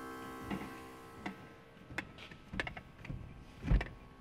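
A steady electrical hum that fades after the first second or so, with a string of separate clicks and knocks. The loudest is a dull thump near the end.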